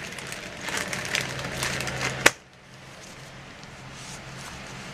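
Hands rustling and rubbing paper and cardstock album pages, wiping off smeared glue with a baby wipe. A single sharp click a little over two seconds in, after which the rustling is much quieter.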